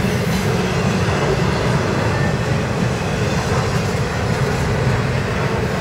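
Intermodal freight train's container well cars and trailer flat cars rolling past, a steady, loud noise of wheels on rail, heaviest in the low range, with no distinct rail-joint clicks.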